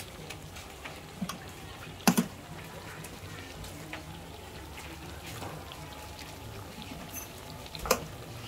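Battered fritters deep-frying in hot oil in an iron kadhai, a steady sizzle and bubbling. Two sharp knocks stand out, a quick double one about two seconds in and another near the end.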